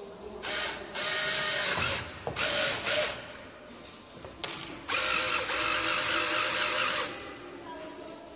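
Servo motors of a small remote-controlled boxing robot whirring in four bursts as it swings its punching arm. The last burst is the longest, about two seconds.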